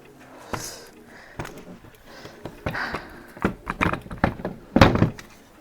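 Plastic and metal parts of a kayak foot pedal assembly knocking and clunking as they are handled and fitted: a few light knocks, then a quick run of clunks in the second half, the loudest near the end.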